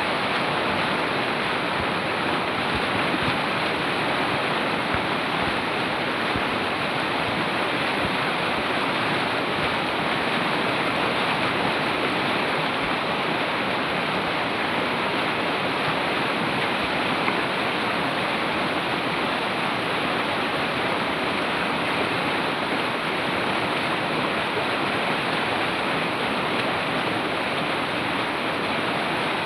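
Fast-flowing mountain river rushing steadily, a dense even roar of water.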